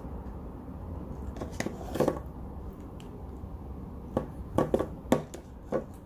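A metal spoon knocking and scraping against a ceramic coffee cup as thick whipped cream is spooned in: a handful of short, light clicks, several close together in the second half, over a low steady hum.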